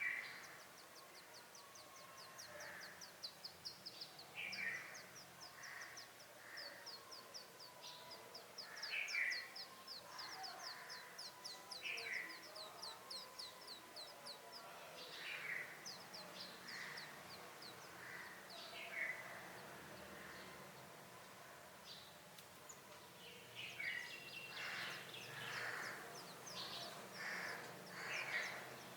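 Brown rock chat nestlings and parent calling at the nest. A fast run of thin, high calls fills the first half, sharp calls come every few seconds throughout, and a busier burst of calling comes near the end.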